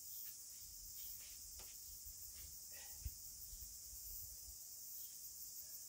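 Faint outdoor background: a steady high-pitched hiss with a few faint ticks, and one short, sharper click about three seconds in.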